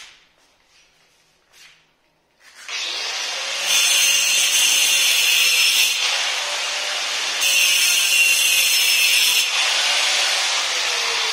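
Handheld electric angle grinder starting up about two and a half seconds in and cutting into a granite strip, the cutting noise growing louder in two spells of about two seconds each. Its whine falls in pitch near the end.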